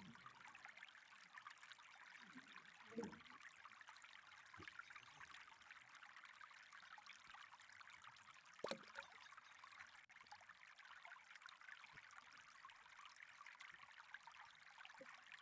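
Faint, steady trickle of flowing water, with a few soft knocks and one sharper click about two-thirds of the way through.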